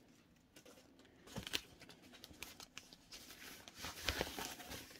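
Faint crinkling and rustling of packaging paper with light handling clicks as a new leather crossbody bag is handled, busier after the first second or so.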